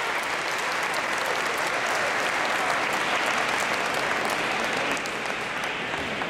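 Audience applauding, a dense steady patter of clapping that eases off slightly about five seconds in.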